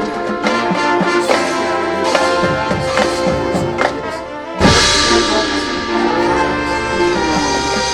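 Marching band playing: brass holding chords over drum strikes, easing back to a softer passage, then coming in loud with the full band about four and a half seconds in.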